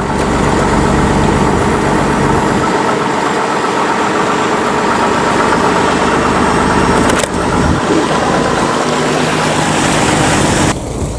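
Fishing boat's engine running steadily and loud. The sound cuts off abruptly near the end.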